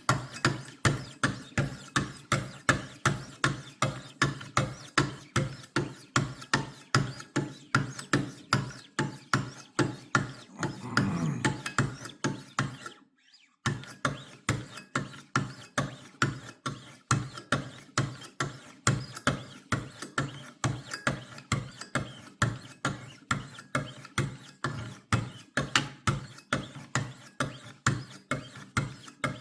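1600-grit sharpening stones on a Wicked Edge WE60 guided sharpener stroking along a knife edge, about two even strokes a second, with a brief pause about thirteen seconds in.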